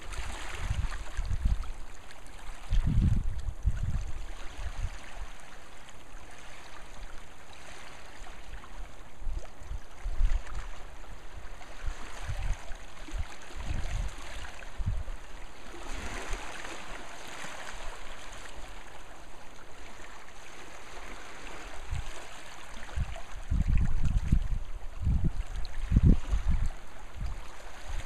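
Small waves lapping and washing against shoreline rocks, in a steady rippling wash that swells about halfway through. Irregular low rumbles of wind on the microphone come and go, strongest early on and again near the end.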